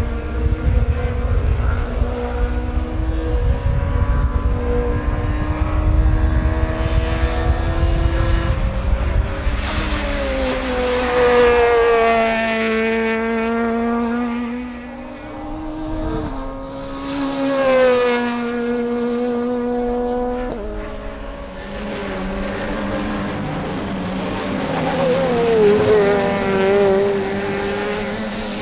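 Touring-car racing engines running at high revs, with a heavy low rumble at first. Then three cars go by, each engine's pitch dropping as it passes: about a third of the way in, past the middle, and near the end.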